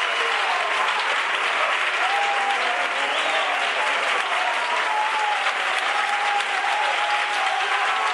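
Congregation applauding, steady clapping throughout with a few voices calling out over it.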